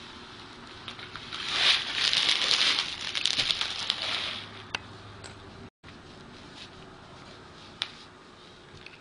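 Plastic poly pellets poured into a nylon tights sack lining a tall glass: a dense rattling patter of tiny clicks lasting about three seconds, then it stops. A single click follows near the end.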